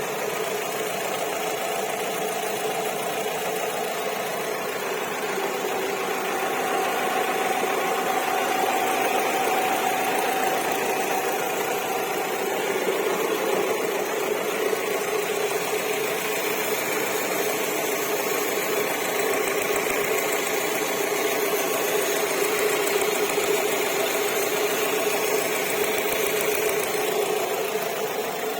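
Alfa Romeo 147 1.6 Twin Spark four-cylinder engine idling steadily with a fast ticking chirp in its running that sounds like cicadas singing, also like a clock's tick-tick.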